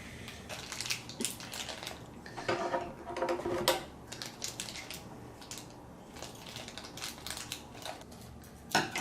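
Hands rummaging through plastic toy packaging and modelling clay: irregular crinkling, clicking and rustling of plastic.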